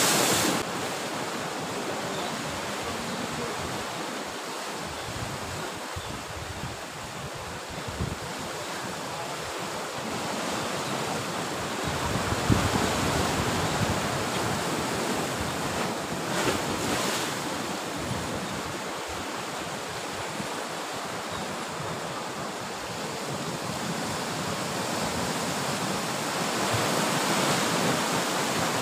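Sea surf washing against a rocky shore, a steady rushing wash that swells a little near the end, with wind gusting on the microphone.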